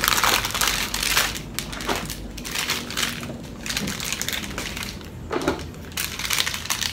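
Crinkling and crushing of a paperboard box of Nestea Wintermelon milk tea and the long strip of plastic powder sachets pulled out of it, in irregular rustling bursts.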